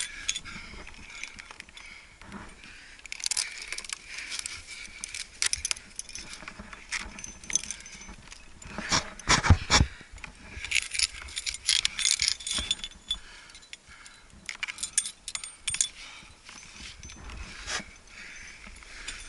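Metal trad-climbing gear, carabiners and cams on a harness, jangling and clinking in bouts as a climber jams up a granite crack, with scuffs on the rock. The heaviest knocks come about nine to ten seconds in.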